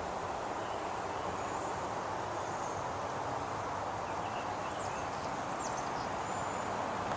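Steady outdoor background noise, a constant rushing hiss, with a few faint high chirps from small animals about two to six seconds in.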